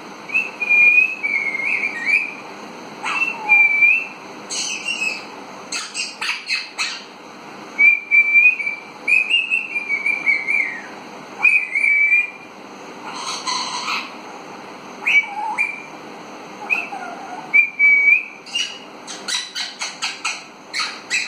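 Young Alexandrine parakeet whistling: a string of short, wavering whistled notes, broken now and then by a few short, harsher calls.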